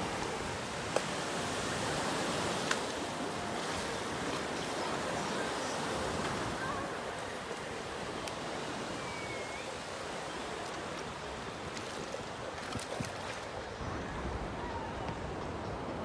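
Small Mediterranean waves breaking and washing on the shore, a steady surf hiss, with two brief clicks in the first three seconds.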